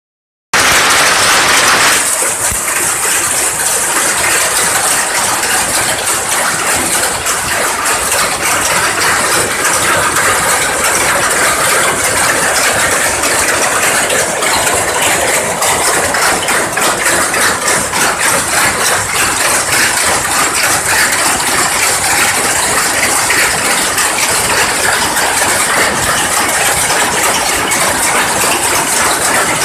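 Powerlooms running in a weaving shed: a loud, dense, unbroken mechanical clatter of many looms working at once.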